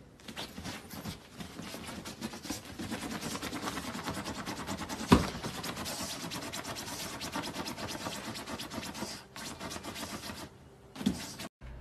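Rapid rustling and scratching of a small puppy wriggling and pawing about on a bedsheet, with one sharp knock about five seconds in. It quiets near the end.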